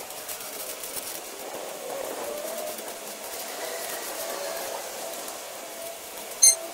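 Steel rake scraping and dragging 3/4-inch modified crushed stone as a paver base lift is spread out, under a steady wavering hum, with one sharp ringing metallic clink near the end.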